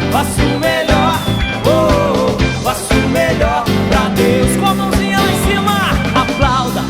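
Live gospel band playing: drum kit keeping a steady beat, bass and keyboard holding notes underneath, and a lead melody of bending, gliding notes on top.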